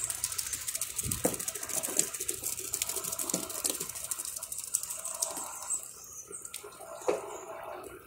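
Electrolux top-loading washing machine agitating a load of laundry, with water and clothes sloshing in the tub and a thin stream of water trickling in from the dispenser.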